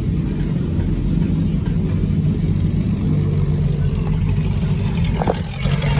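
Historic racing car engine idling with a steady, deep rumble.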